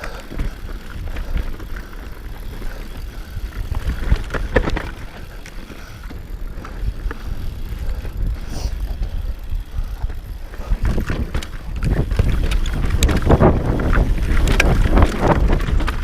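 Enduro motorcycle riding over a rough dirt track: low rumble with wind buffeting the microphone and frequent knocks and rattles. It gets louder in the last five seconds or so.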